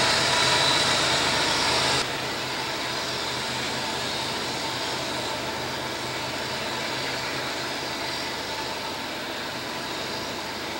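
Diesel freight locomotives working hard up a mountain grade: a steady engine and turbocharger drone with a few faint held tones. It drops abruptly in loudness about two seconds in.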